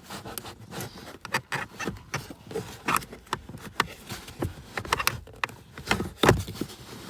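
A 2014 Ford F-150's plastic heater blower motor scraping, rubbing and knocking against the surrounding dash plastics as it is worked loose and pulled out. There is an uneven run of clicks and scrapes, with a louder knock about six seconds in.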